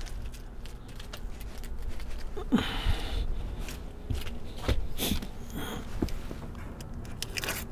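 Footsteps on a flat roof membrane and light rustling of peeled-off painter's tape being handled and dropped. Scattered small knocks run through it, with a louder rustle about two and a half seconds in.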